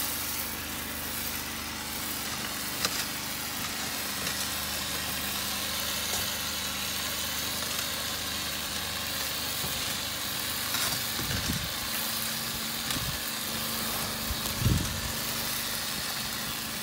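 Water spraying from a pressure-washer wand onto clay roof tiles in a steady hiss, over the steady hum of the pressure washer's engine. A few brief low thumps come in the second half.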